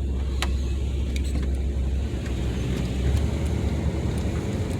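Inside a car driving slowly: a steady low engine and road rumble, with a few light creaks and clicks from the cabin.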